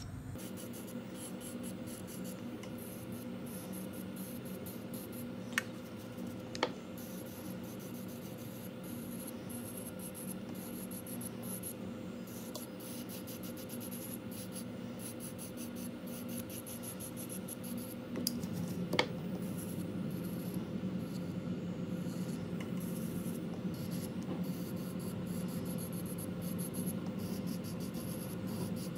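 Electric nail drill running steadily, its small diamond bit (a mini bat bit, set to about 5 to 6) rubbing and grinding away loose cuticle skin. A few sharp clicks are heard. About eighteen seconds in, the drill's hum changes and gets slightly louder.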